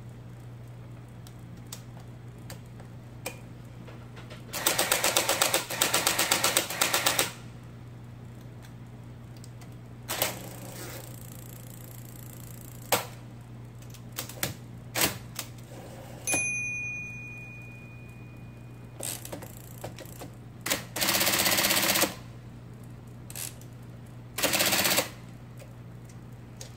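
IBM Selectric golf-ball typewriter under test: its motor hums steadily while the typeball strikes in fast bursts of many even strokes and in single sharp keystrokes. A thin ringing tone follows one stroke about two-thirds of the way through.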